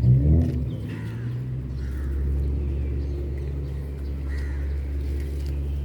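Steady low hum, with a few faint bird chirps above it.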